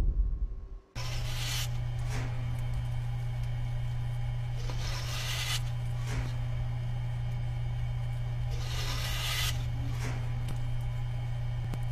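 A loud low rumble that cuts off about a second in, then a steady low hum with three rubbing, rasping swooshes about four seconds apart. These are the sound effects of a 3D kinetic-sculpture animation.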